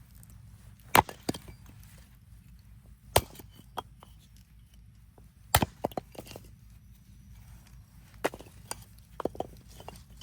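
Firewood being chopped: four sharp chops about two to three seconds apart, each followed by a few lighter knocks.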